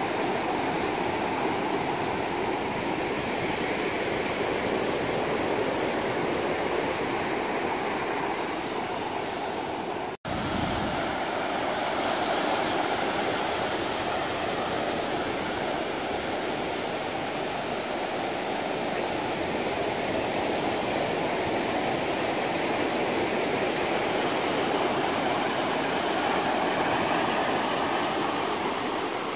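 Sea surf breaking offshore and washing up a flat sandy beach, a steady rushing wash. It cuts out for a split second about ten seconds in.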